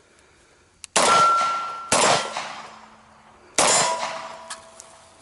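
Three pistol shots: two about a second apart, then a third after a pause of about a second and a half. After the first and the third comes a metallic ringing clang that dies away.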